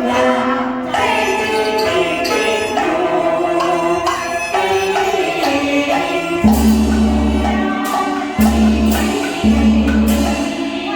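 Teochew opera music: a singer with the accompanying opera ensemble playing a winding melody. About six and a half seconds in, a deep bass enters in long held notes, broken by short gaps.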